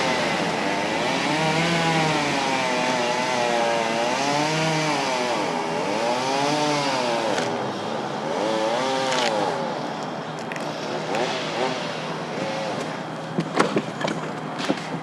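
A small engine revving up and down over and over, fading after about ten seconds, followed by a few sharp knocks near the end.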